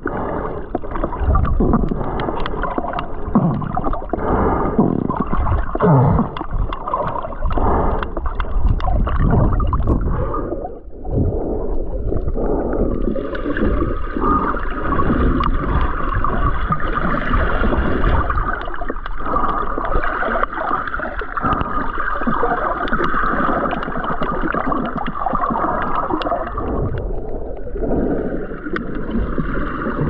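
Sea water sloshing and gurgling close to the microphone while snorkeling. It runs on without a break, with a short dip about eleven seconds in.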